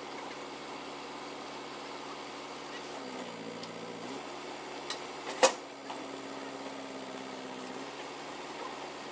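Truck engine idling steadily, its note shifting twice for a second or so. A sharp knock about five and a half seconds in, with a smaller one just before it.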